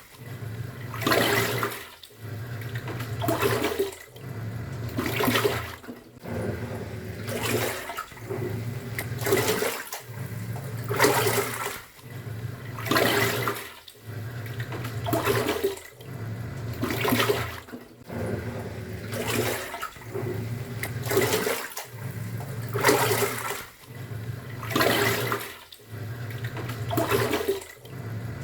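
Top-loading pulsator washing machine agitating a load in water. The motor hums as the pulsator turns one way, stops and reverses, with a surge of sloshing water about every two seconds.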